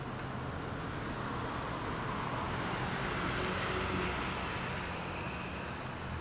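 City street traffic: cars and a motorbike passing, a steady hum of engines and tyres that swells slightly in the middle.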